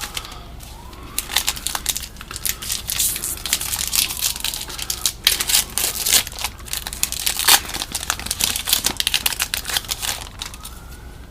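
A 2015 Topps Opening Day baseball card pack wrapper being torn open and crinkled: a run of sharp, crackling rustles.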